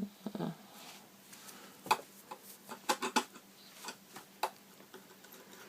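Scattered light clicks and taps of the iMac's metal RAM access cover being handled and pressed into its recess, with a few sharper clicks about 2, 3 and 4.5 seconds in.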